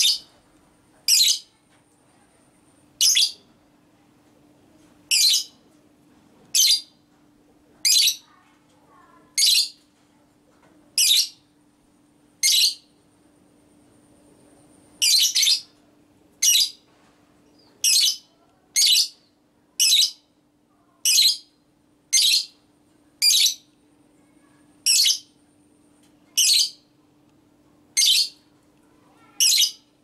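Fischer's lovebird calling: short, shrill calls repeated about every second and a half at uneven spacing, with two calls close together about halfway through.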